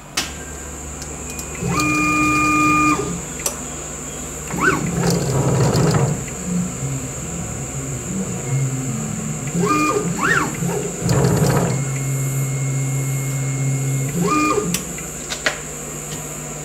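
Benchtop CNC mill's stepper motors driving the axes through a drag-engraving pass on an aluminium sleeve: steady whining tones that start and stop with each move, and a couple of short whines that rise and fall in pitch as the moves speed up and slow down. The engraving tip itself is nice and quiet.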